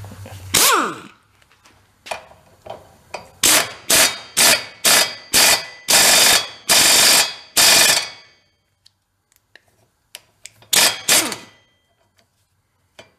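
Air impact wrench hammering in short bursts, about ten in a quick string and two more a few seconds later, driving the screw of an exhaust pipe expander to stretch a rusty pipe end.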